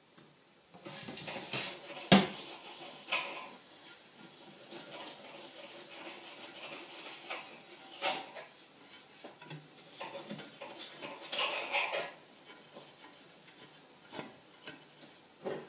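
Crockery and cutlery clinking and knocking on a kitchen worktop in scattered clatters, with a sharp knock about two seconds in and a busier stretch of clattering near the end.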